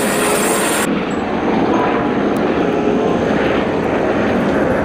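Eurocopter EC130 helicopter running and lifting off: steady turbine and rotor noise, the highest hiss dropping away about a second in.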